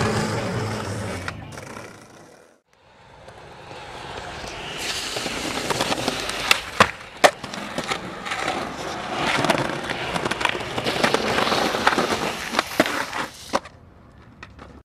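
Skateboard wheels rolling over rough concrete, with several sharp clacks of the board, a cluster about halfway through and more toward the end.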